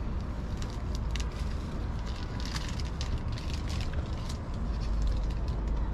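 Crinkling and rustling of a paper-and-plastic kebab wrapper as it is handled, heard as quick irregular crackles, over a steady low rumble of city traffic.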